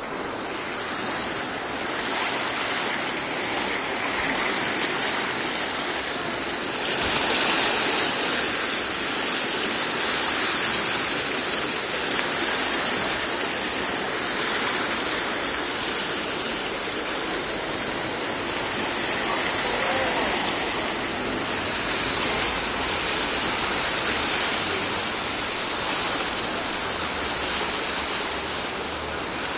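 Fast-flowing floodwater rushing steadily, growing louder about two seconds in and again about seven seconds in.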